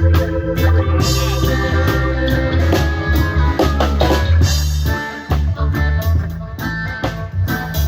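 Live band playing together: drum kit keeping a steady beat under a heavy bass line, with guitar and organ chords.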